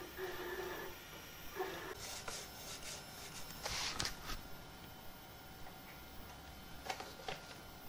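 The servo-driven axis of a MakerThink Knight 3D printer runs with a steady whine for about a second at the start, and again briefly, while the bed is being levelled. After that come several short rustles and rubs from hands working at the print bed.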